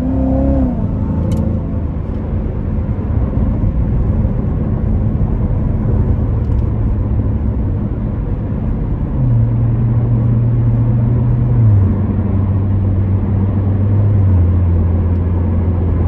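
The Corvette Z06's supercharged 6.2-litre V8, heard from inside the cabin, is high in revs at first and drops in pitch within the first second. It then settles into a steady drone over road noise, stepping lower in pitch a few times in the second half.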